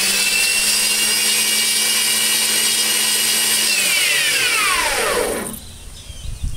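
Grizzly variable-speed benchtop bandsaw running with no load, a steady motor whine that steps up in pitch as the speed knob is turned. About four seconds in it is switched off and winds down with a falling whine lasting about a second and a half.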